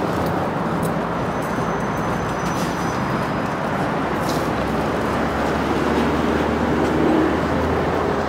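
Electric tram moving along street tracks at a stop, with a steady running noise and city traffic behind it; a low hum grows stronger near the end.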